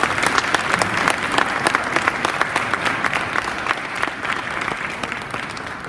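An audience applauding: many people clapping at once, slowly dying away toward the end.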